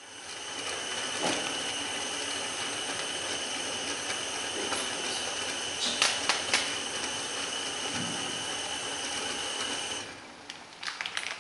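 Butane-cartridge camping stove burner running under a mug of water: a steady hiss with a thin high whistle. A couple of light clicks come about six seconds in, and the burner is shut off about ten seconds in, followed by small handling clicks.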